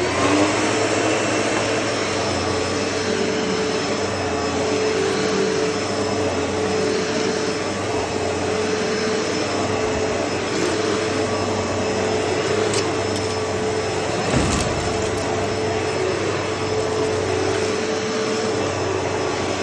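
Hoover Elite Rewind upright vacuum cleaner running steadily, its motor noise carrying a steady tone, with one brief knock about fourteen seconds in.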